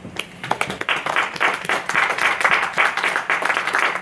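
Audience applauding: a few claps about a fifth of a second in, quickly building to steady applause.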